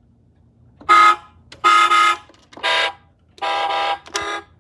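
Electronic horn honks from a Road Rippers toy truck's small speaker: five short steady-pitched blasts of varying length, the last one very brief.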